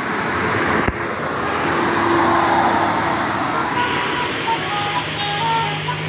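Heavy vehicle passing on the road with a steady wash of engine and tyre noise, and a sharp click about a second in. Near the end a bus's low engine hum rises and its multi-tone 'telolet' air horn starts a tune of short stepped notes.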